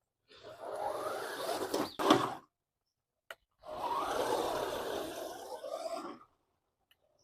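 1:10 scale RC truck's electric 550 motor whirring as it drives, with its tyres scraping over the ground, in two runs of a couple of seconds each. A sharp knock about two seconds in.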